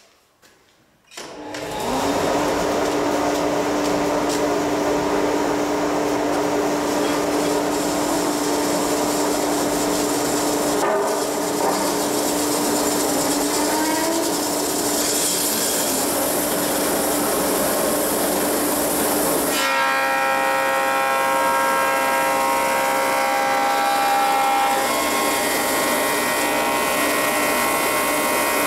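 Planer-thicknesser and its dust extractor starting up about a second in, then running loudly and steadily. About two-thirds of the way through the sound changes and picks up several steady higher tones as a board of rough-sawn tulipwood is fed through to be planed to thickness.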